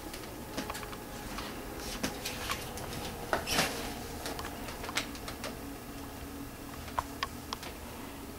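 Scattered small clicks, taps and rustles of plastic packaging being handled and opened by hand.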